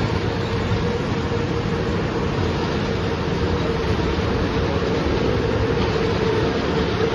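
Children's fairground car ride running: small cars rolling around a raised circular track with a steady rumble and a steady hum.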